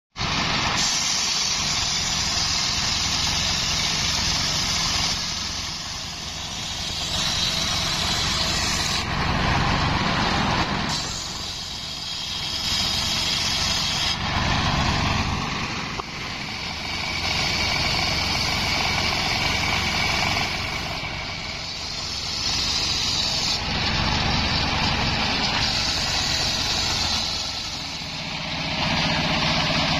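Engine-driven homemade table circular saw ripping coconut-palm trunk wood: a loud hissing whine of the blade in the wood over the running engine. The cutting eases off briefly several times between passes, leaving the engine, then comes back.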